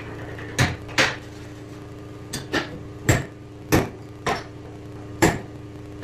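About eight sharp knocks at uneven spacing, each short and loud, over a steady machine hum.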